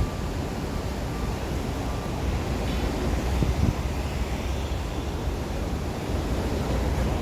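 City street ambience: a steady low rumble of traffic with a few brief knocks about halfway through.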